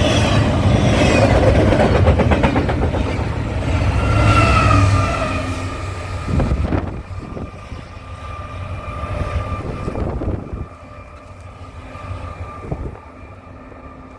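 A large vehicle rumbling past, loud for the first few seconds, then fading away over the second half with a faint steady whine.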